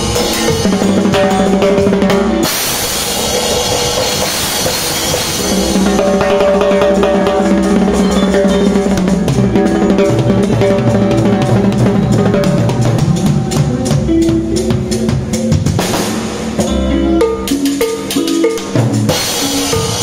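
Drum kit played live in a dense groove of bass drum, snare and rimshots, with pitched instruments holding notes underneath. The playing thins out briefly late on, then fills in again.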